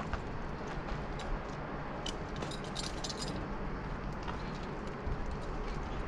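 Metal carabiners on a climbing lanyard clinking and jangling, with a cluster of clinks about two and a half to three and a half seconds in, over a steady low background noise.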